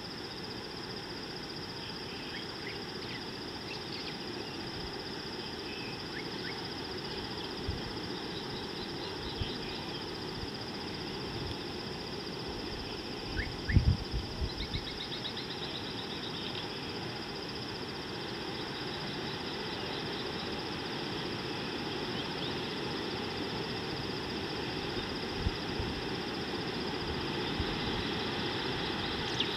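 Steady outdoor background noise with a constant thin high hum, faint bird chirps and a few short trills, and a brief cluster of low thumps about halfway through.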